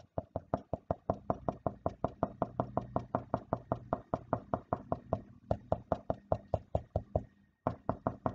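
Felt-tip marker tapping dots onto paper held against a drawing board: a quick, even series of light taps, about five a second, with a short pause near the end.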